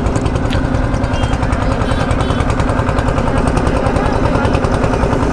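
An engine running steadily at an even speed, with a rapid, regular beat.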